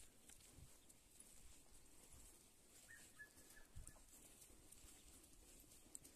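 Near silence: faint open-air ambience with scattered faint ticks and one brief faint high call about three seconds in.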